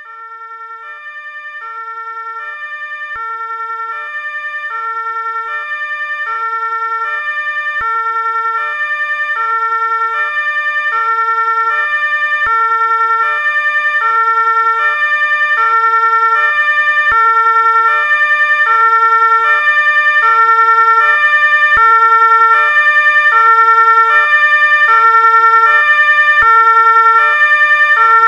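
Ambulance siren sounding a two-tone hi-lo alternation, switching between its two pitches about every half second. It grows steadily louder over the first half, then holds at full level.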